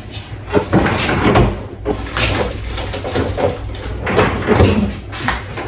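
Refrigerator door opened and items shifted about on its shelves: irregular knocks, clinks and rustles.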